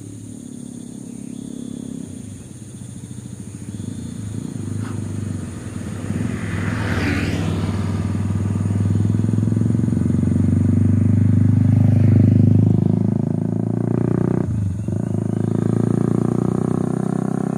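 An engine running with a steady low hum that grows louder until about two thirds of the way through, then dips briefly.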